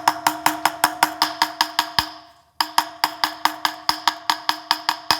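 A hammer tapping a new wheel bearing into a motorcycle wheel hub, quick even metallic knocks at about five or six a second that ring briefly, in two runs with a short pause in the middle, driving the bearing down flush with the hub.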